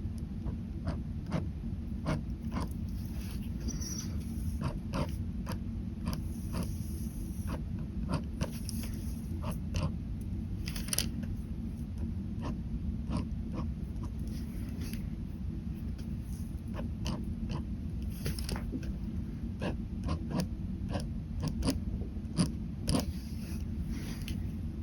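Ballpoint pen scratching and ticking on paper in many short strokes, over a steady low hum.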